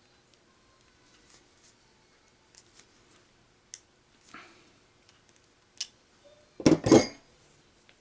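Long-handled crimping tool closing on a ring terminal around a thick wire: light clicks of handling, then two loud metal clamping strokes close together near the end.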